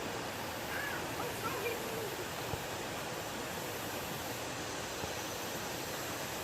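Steady rushing of storm floodwater, an even hiss-like wash of running water, with a few faint short high-pitched sounds about a second in.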